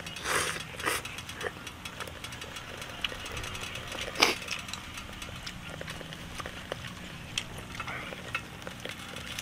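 Eating at a simmering hotpot: rice noodles slurped from a bowl in the first second, then chewing with small clicks of chopsticks against bowl and pot. About four seconds in there is one sharp blown-out breath, as after a mouthful hot with bird's-eye chilli.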